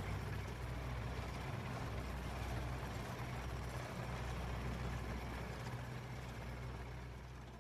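A vehicle engine running steadily, a low hum under a steady hiss, fading out near the end.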